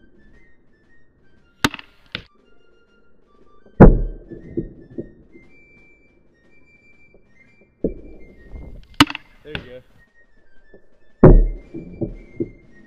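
Under-barrel airsoft 40mm grenade launcher firing gas-charged 40mm shells: three loud thunks a few seconds apart, each with a short rattling tail, and between shots pairs of sharp clicks of the launcher's breech being opened and shut to reload. Faint background music with a thin melody runs underneath.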